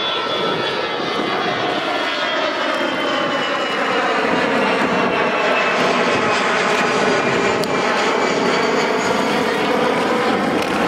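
Fixed-wing aircraft passing overhead, its engine whine sliding slowly down in pitch and then levelling off, over steady wind and rolling noise.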